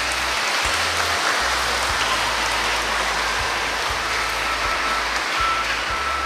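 An audience applauding: steady clapping from many hands that begins abruptly and holds at an even level.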